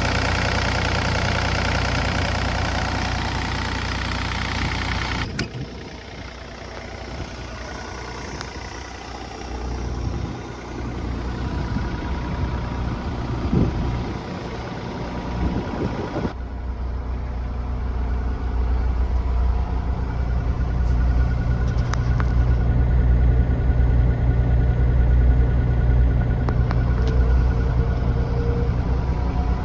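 Yanmar diesel engine of a Komatsu PC30MR-5 mini excavator running steadily. The sound changes suddenly to quieter running about five seconds in, then back to louder, deeper running about sixteen seconds in.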